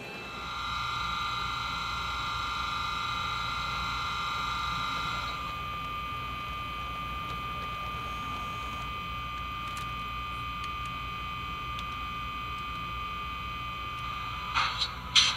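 Steady electric whine of an HO-scale Atlas NJ Transit ALP-45DP model locomotive standing still, made of several fixed tones that thin to one main tone about five seconds in. A few short clicks come just before the end.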